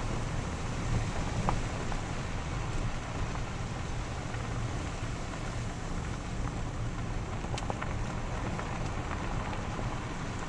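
Steady rumble of a car driving along a road, engine and tyre noise with a few faint ticks.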